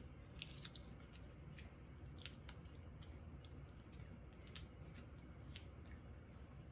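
Faint, scattered light clicks and crinkles of photocards in clear plastic sleeves being handled and set down one after another.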